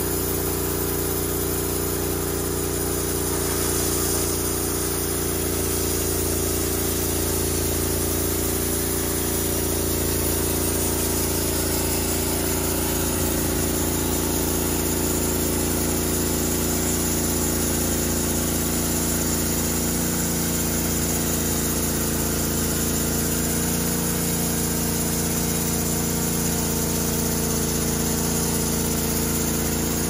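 Portable bandsaw sawmill's engine running steadily while the band blade cuts along a wooden timber.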